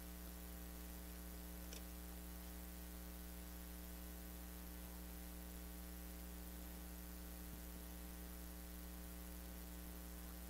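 Steady electrical mains hum with a ladder of even overtones and faint hiss, unchanging throughout; a faint click about two seconds in.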